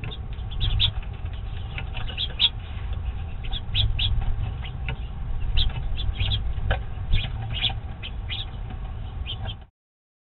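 Short, sharp chirps from house finches at a seed-filled platform feeder, scattered irregularly over a steady low rumble; the sound cuts off suddenly near the end.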